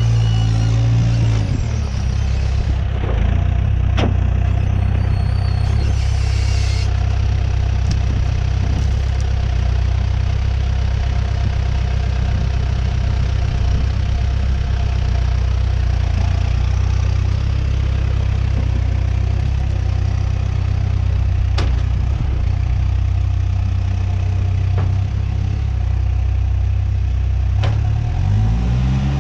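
New Holland B100B backhoe loader's diesel engine idling steadily, settling down from higher revs in the first second or so and revving up again near the end, with a few short clicks and knocks.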